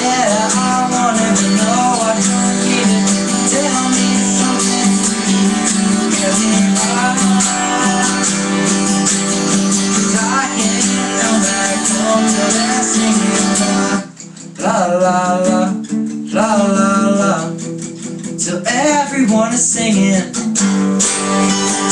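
Acoustic guitar strummed with a voice singing along. The playing thins out briefly about two-thirds of the way through, then picks up again.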